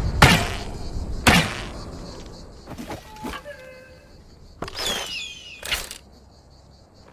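Bow and arrow sound effects: two sharp thunks, then quieter clicks with brief thin squeaky tones, and one more sharp snap later on.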